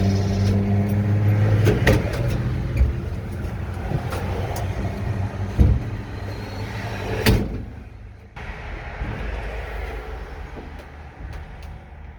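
Vehicle engine heard from inside the cab while driving, its ignition cutting out intermittently. The steady engine hum fades after about two seconds, with several knocks and rattles from the vehicle. The sound drops lower about eight seconds in.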